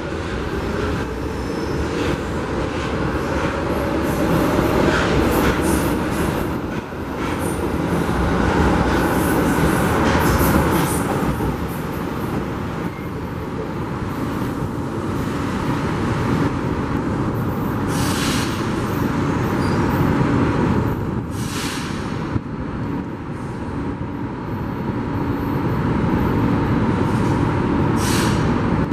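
São Paulo Metro Fleet K train running on elevated track: a steady rumble of wheels on rail that swells and eases as it passes, with two short high-pitched bursts in the second half.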